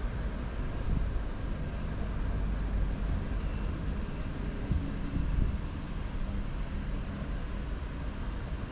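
Steady city street noise, mostly the low rumble of motor traffic.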